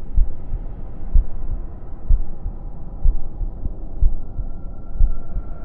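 Slow heartbeat sound effect: deep double thumps about once a second over a steady low drone, starting abruptly. A faint high tone joins near the end.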